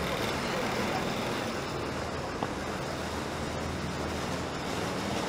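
Steady city street traffic, with the low engine hum of buses moving slowly in stop-and-go traffic close by. A single short click sounds about two and a half seconds in.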